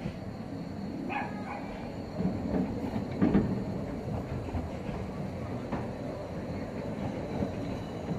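Narrow-gauge railway coaches rolling slowly past: a steady low rumble of wheels on rail with intermittent clicks and knocks over the rail joints. A brief higher-pitched sound comes about a second in.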